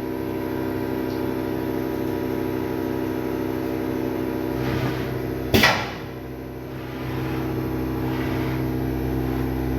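CNC milling machine running with a steady hum of several fixed tones. A single sharp clack comes about five and a half seconds in, the level dips for about a second, and then the machine noise picks up again, fuller and lower.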